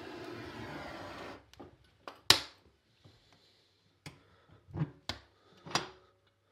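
Firewood being loaded into the firebox of a Technolit Avangard P2 Uragan sauna stove: a drawn-out scrape for about a second and a half, then a sharp knock a couple of seconds in and several lighter knocks as the logs go in.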